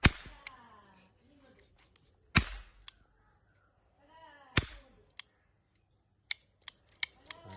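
Toy cap gun (cracker gun) firing: three loud sharp cracks about two seconds apart, then a quick run of lighter snaps near the end.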